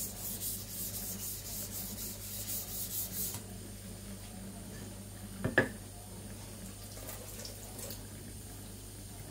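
Zwilling Five Star chef knife blade scraped back and forth on a wet Naniwa Aotoshi green whetstone under heavy pressure, its side being ground flat. The quick, regular strokes stop about three seconds in. A single sharp knock follows about halfway through, with a tap running into a steel sink behind.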